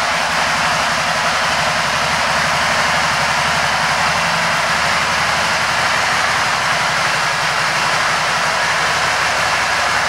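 2013 Can-Am Spyder RT's Rotax V-twin engine idling steadily: a low, even pulsing rumble under a loud, constant hiss.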